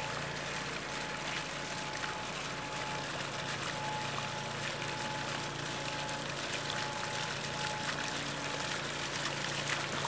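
Water from a basalt column fountain spilling down the stone and splashing into a basalt basin, a steady, even trickling.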